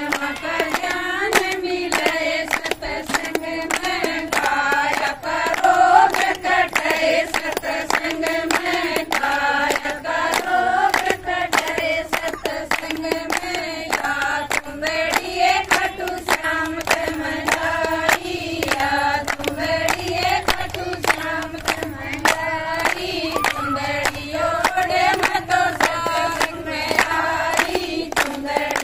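A group of women singing a Haryanvi folk song together, with steady rhythmic hand-clapping keeping the beat.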